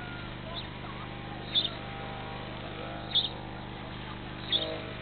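A small bird's short, high call repeated four times, about once every second and a half, over a steady low hum and fainter background calls.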